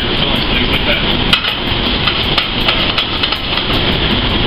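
Ground pork filling sizzling in a sauté pan on a commercial gas range, with metal clanks from the pan and utensil, over a loud steady kitchen roar. A sharper knock comes about a second and a half in.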